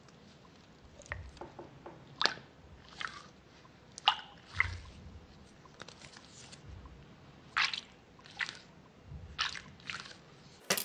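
Fingers squeezing and kneading a soft, liquid-filled jelly squishy ball, giving irregular soft squelches and sticky clicks close to the microphone.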